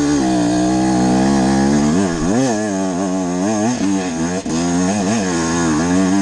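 On-board sound of a 125 cc enduro dirt bike engine climbing a trail: it runs at a nearly steady pitch for about two seconds, then revs up and down about twice a second as the throttle is opened and closed over the rough ground.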